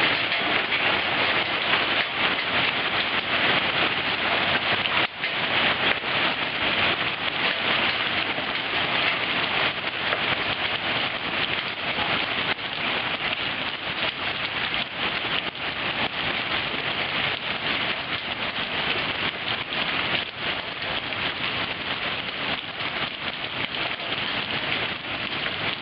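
Hailstones up to three-quarter inch falling with heavy rain in a thunderstorm, pelting surfaces in a dense, steady patter of many small impacts.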